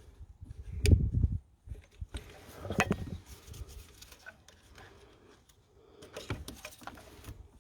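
Plastic electrical connectors being unplugged from the injector wiring and the loom handled in the engine bay: a few sharp clicks and knocks, the loudest about a second in, with smaller rattles later.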